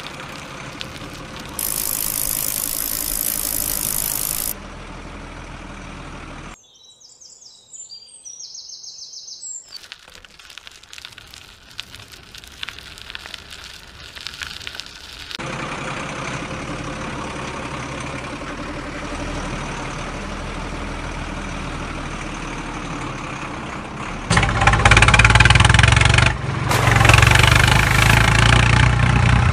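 A patchwork of edited outdoor sounds that change abruptly at cuts: hiss, a near-silent stretch, faint crackling clicks and steady noise. In the last five seconds a motor vehicle engine runs loudly and steadily, dubbed over the toy trucks.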